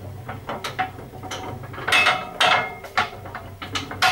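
Rolls-Royce RB211-22B front fan turning slowly after a push by hand. Its loose titanium blades' mid-span clappers bang against the clappers of the neighbouring blades in an irregular metallic clanking rattle, some knocks ringing briefly. It is the normal rundown rattle of the loosely mounted fir-tree-root blades, not a sign of broken bearings.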